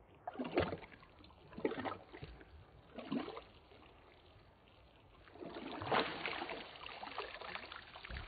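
Hands splashing in shallow pond water: three short splashes in the first few seconds, then a longer spell of splashing and water spattering back onto the surface from about five seconds in.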